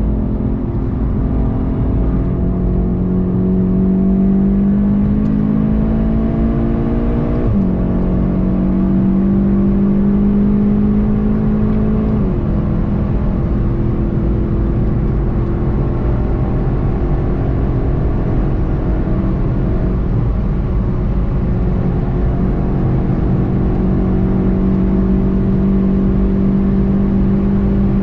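In-car sound of a VW Golf 7 GTI TCR's turbocharged four-cylinder engine pulling hard, its pitch climbing and then dropping suddenly at two gear changes, one about a quarter of the way in and one a few seconds later, then running on fairly steadily, with road rumble beneath.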